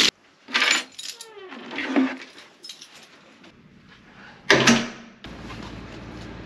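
Keys jangling and an apartment's steel front door being worked, with a loud clunk about four and a half seconds in as it shuts, followed by steady outdoor background noise.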